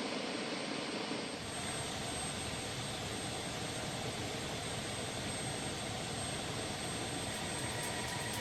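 Steady aircraft engine noise, an even rushing drone with no break.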